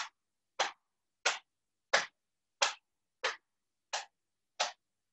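A hand tapping on the lower belly in a steady rhythm, about three taps every two seconds, eight in all: qigong self-tapping over the lower energy centre.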